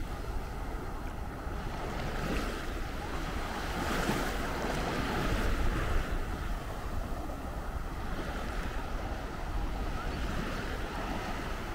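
Small sea waves washing onto a sandy beach, swelling about four to six seconds in, with wind buffeting the microphone.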